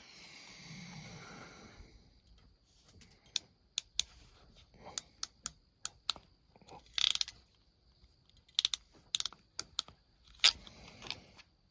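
Irregular sharp clicks and light taps of hand tools and a coaxial cable connector being handled and worked on, after a soft rustle in the first two seconds.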